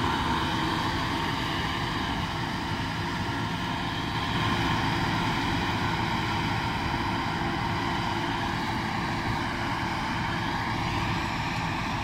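Claas Lexion 530 combine harvester running under load while cutting wheat: a steady machine drone with a constant whine on top, fading a little as it moves away.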